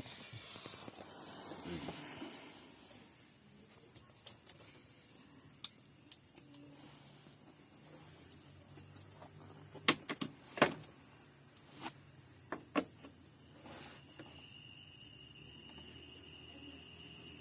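Crickets chirring steadily in the background, with a handful of sharp clicks and taps bunched about ten to thirteen seconds in, from hands and tools working on car wiring.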